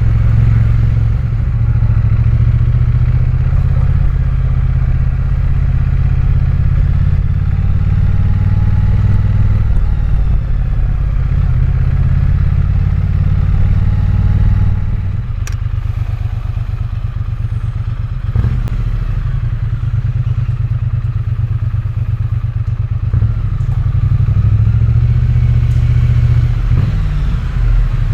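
Triumph Bonneville's parallel-twin engine running loud and steady. Its engine speed drops a little past halfway and picks up again near the end.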